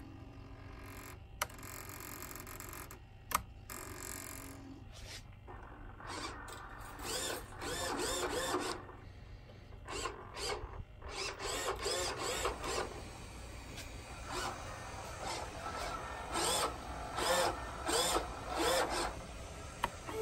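Electric retractable landing gear of a large radio-control P-38 model cycling: small motors whine in repeated bursts of wavering pitch as the three gear legs retract and then extend again, with two sharp clicks in the first few seconds.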